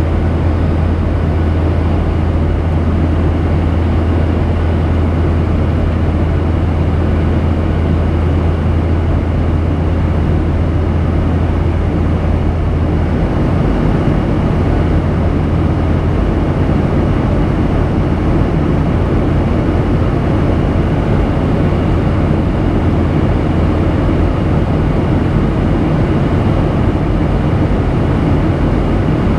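Steady cabin noise of a Boeing 737-800 in flight, heard at a window seat over the wing: the drone of its CFM56-7B turbofan engines and the rush of air past the fuselage. A strong low hum drops somewhat about halfway through.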